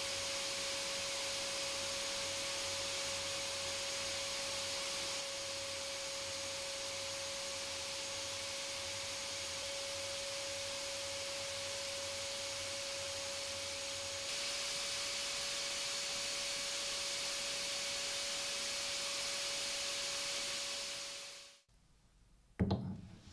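Sandblasting cabinet's blast gun hissing steadily as a jet of corundum abrasive strips a rusty steel hammer head, with one steady tone running under the hiss. The blast stops near the end, and a short knock follows, of the hammer head being set on a bench vise.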